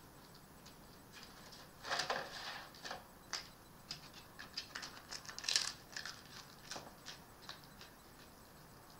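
Red fox feeding from a dish and shifting about on a plastic garden table: irregular small clicks and scrapes, busiest between about two and six seconds in.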